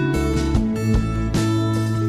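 Background music led by a strummed acoustic guitar, steady chords with regular strums.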